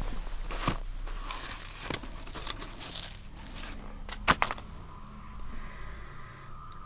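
Scattered crackling and crinkling of dry straw and debris on the floor, with a sharper snap about four seconds in.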